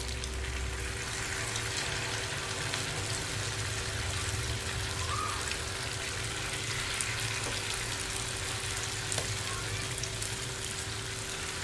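Ote-ote vegetable fritters sizzling steadily as they deep-fry in hot oil, while more spoonfuls of batter go into the pan. A faint steady hum runs underneath.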